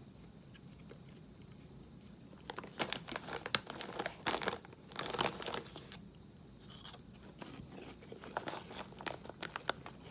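Crunchy cheese-flavoured puffed corn snacks being bitten and chewed, mixed with the crinkle of the snack bag. The crackling comes in two spells, the first about two and a half seconds in and the second near the end.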